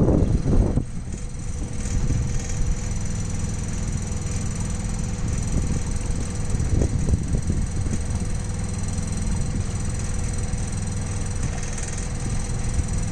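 Houseboat engine running steadily, a low hum with a faint steady whine over it; a louder rushing noise stops about a second in.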